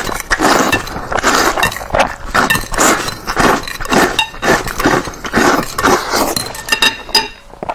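Close-up wet slurping of instant noodles and broth, in short rapid sucks two or three a second, ending in a few squeaky sucks.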